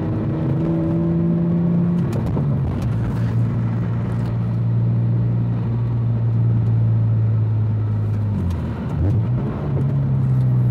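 BMW M3 engine running at a steady cruise with road noise, heard from inside the car; the engine note drops in pitch about two seconds in, then dips and recovers about eight seconds in.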